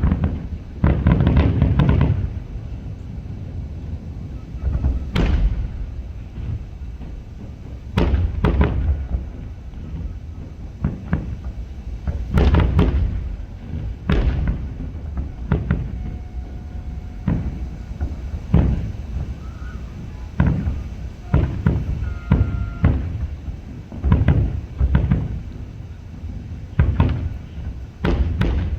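Aerial fireworks bursting: a string of sharp booms at uneven intervals, some in quick clusters, each followed by a low rumbling echo.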